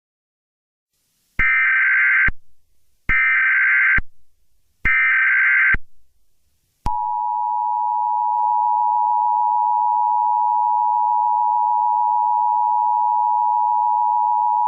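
Emergency Alert System tones: three bursts of digital SAME header data tones, each about a second long, then about seven seconds in the steady two-tone EAS attention signal starts and holds.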